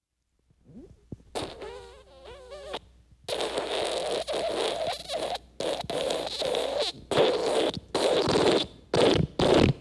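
Wet fart sound effect: after a brief silence, a short squeaky fart with a wavering pitch, then long wet sputtering stretches that break into quick short bursts near the end.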